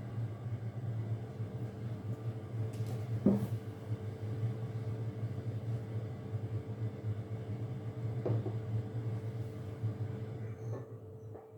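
Steady low hum of a running household appliance, with a few light knocks over it; the hum dies away near the end.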